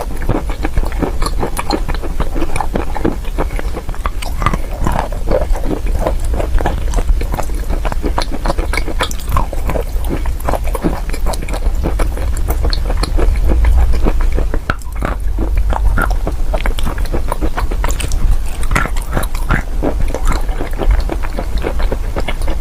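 Close-miked chewing and crunching of chalk: a dense, irregular run of crisp crunches and clicks over a steady low rumble.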